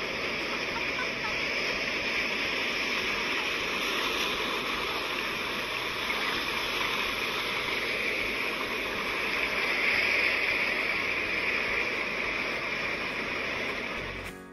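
Ocean surf washing in over a rocky beach: a steady rush of water that swells about ten seconds in.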